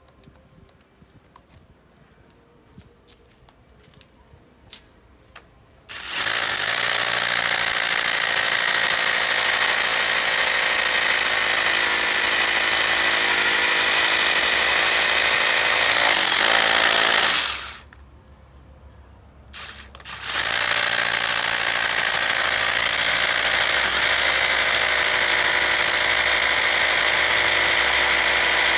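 Makita 12V brushless rotary hammer drilling into concrete: after a few faint clicks, the drill starts about six seconds in and runs loud and steady for about eleven seconds, stops for a couple of seconds, then runs again.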